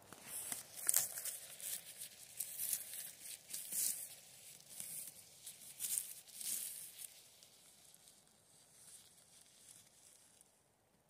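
Clear plastic bag worn over a hand crinkling and rustling in irregular bursts as it brushes through low forest undergrowth, quieter in the last few seconds.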